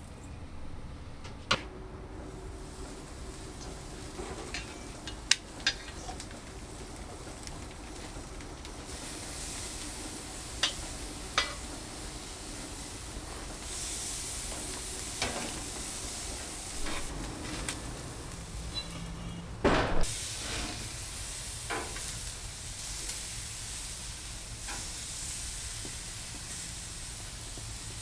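Garlic scapes frying in butter in a pan: a steady sizzle that grows louder about halfway through, with scattered sharp clicks and knocks, the loudest about two-thirds of the way in.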